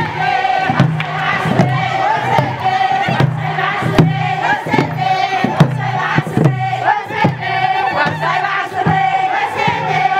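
A crowd of women singing and chanting together over a kebero hand drum beaten in a steady rhythm, with high sustained cries carried above the singing.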